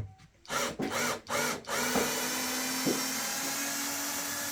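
Power drill-driver run in three short bursts that spin up and down, then held running steadily, as screws are driven out of a loudspeaker cabinet during disassembly.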